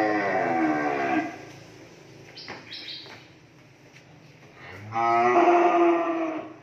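Cattle mooing: two long moos, the first ending about a second in, the second starting about five seconds in and lasting about a second and a half.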